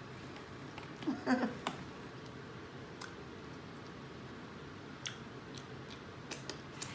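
Eating sounds from a person eating with her fingers: chewing, with scattered wet mouth clicks and smacks as she licks sauce from her fingertips, and a short hummed vocal sound about a second in.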